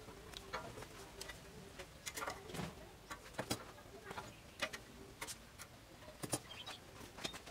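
Faint, irregular light clicks and taps of metal being handled on a steel lathe bed, with a few sharper knocks about halfway through and again near the end.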